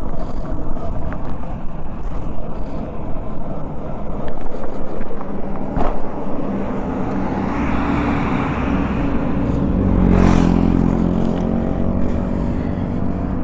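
Motorcycle riding at road speed, with wind rushing over the microphone. About eight seconds in, an oncoming truck passes, its engine swelling to a peak and then fading over a few seconds.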